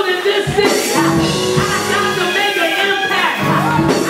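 Live church worship music with a man's voice singing into a microphone over it.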